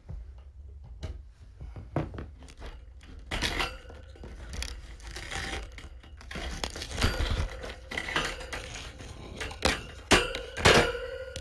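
Kittens scampering and playing: a run of light thumps, knocks and rustling. Two sharp knocks come a little after ten seconds, and a ringing note hangs on after the second.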